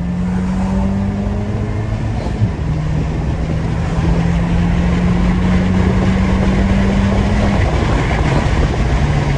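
Peugeot 208 GT's turbocharged 1.6 THP four-cylinder accelerating hard, its note climbing steadily through a gear, then dropping sharply at upshifts about two and a half seconds in and again near eight seconds, with road and wind noise building underneath.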